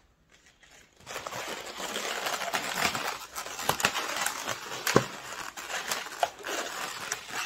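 Inflated latex twisting balloons rubbing and crinkling against each other as they are handled and pressed into place, starting about a second in, with a few sharp clicks, the loudest about five seconds in.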